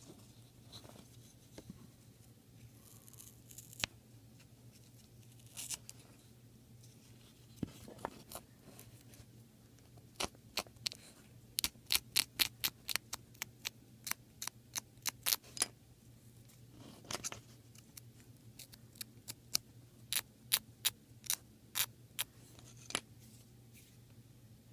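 Old moth-eaten felt being torn by hand off a small wooden upright piano action part, a few soft tearing sounds. From about ten seconds in, a razor blade scrapes the felt remains off the wood in runs of quick, sharp strokes.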